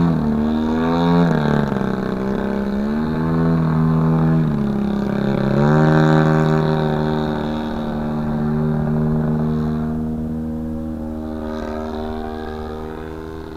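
Engine of a 40% scale Sbach RC aerobatic airplane in flight, its pitch rising and falling several times with throttle changes, then holding a steady drone that slowly fades near the end.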